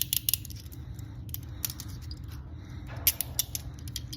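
Steel handcuffs clinking and clicking as they are handled and closed, a scatter of short sharp metallic clicks, several in quick pairs.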